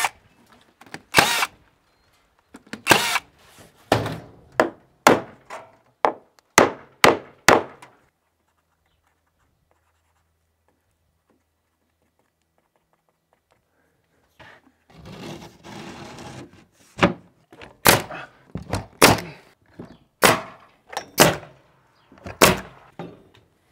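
Nail guns driving nails into wooden fascia and trim: a run of sharp single shots about every half second, then a pause of several seconds, then a second run of shots near the end.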